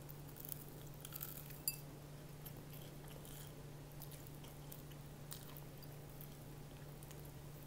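A person biting and chewing crispy breaded fried chicken, with scattered crunchy clicks that are busiest in the first two seconds and one sharp click just under two seconds in. A steady low hum runs underneath.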